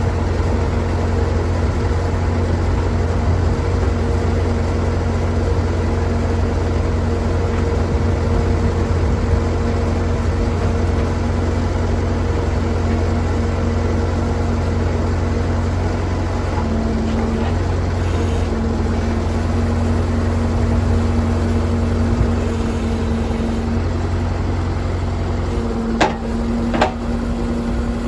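Engine of a digging machine running steadily, with a steady low hum. Two sharp knocks near the end.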